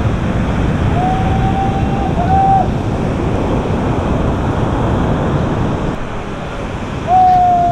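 Surf breaking and wind on the microphone, a steady rush. Twice a short held note rises above it: about a second in, with a brief break, and again near the end.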